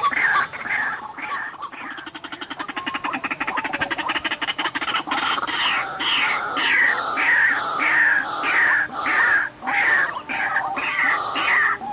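White-breasted waterhen calling: a fast rattling run of notes, then loud, repeated falling calls about two a second.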